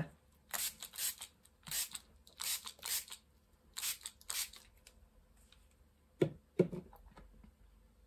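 Pump spray bottle misting water in about eight short spritzes over the first four seconds or so, wetting pixie powder on the card to activate it. Two soft knocks follow about six seconds in.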